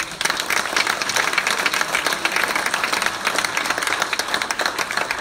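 Large audience applauding, many hands clapping at once.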